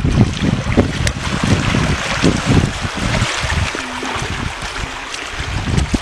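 Wind buffeting the microphone in gusts over a steady rush of water flowing through a dam's spillway. The gusts ease off for a moment around the middle.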